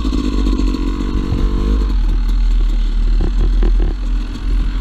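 Two-stroke dirt bike engine running, with a steady note for about the first two seconds, then uneven, with several short knocks and rattles about three to four seconds in.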